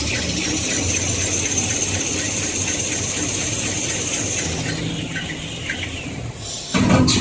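Automatic toilet-paper-roll packing line running: steady machine noise with rapid regular clicking and a high whine that stops about four and a half seconds in. A short, loud hiss near the end.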